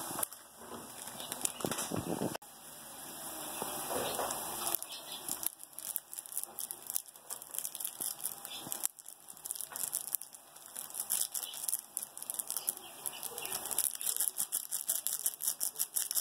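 Water with instant noodles boiling in a pot: a rapid crackle of bursting bubbles, thickest in the second half.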